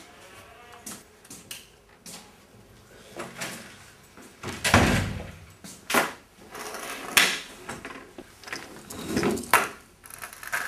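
A door opening into a small room, followed by scattered knocks, thumps and scrapes of handling and movement. The loudest thump comes about halfway through.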